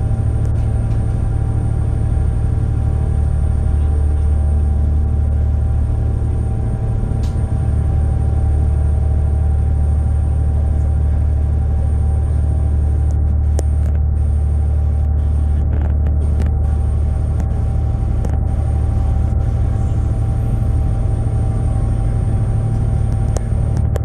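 Steady drone of a high-speed passenger ferry's engines: a deep, even hum with several steady tones over it, unchanging throughout.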